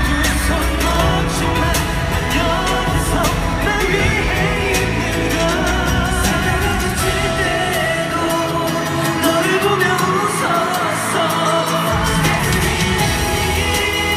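Male K-pop singer singing live into a handheld microphone over pop backing music, played through a concert hall's sound system. The deep bass drops out about eight seconds in and comes back about four seconds later.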